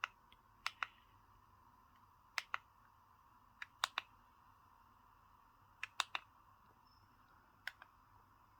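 Small plastic push-buttons clicked in quick pairs about every second or two, five groups in all, as the device's settings are stepped through.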